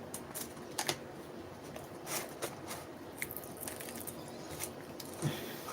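Faint, scattered small clicks and scrapes of fingers working a keyboard's ribbon-cable connector loose by hand.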